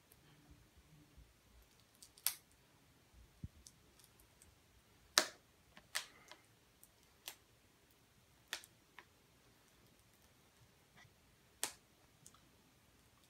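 Plastic packaging of a Blu-ray set being handled and picked at, giving scattered sharp clicks and crinkles at irregular intervals, the loudest about five seconds in.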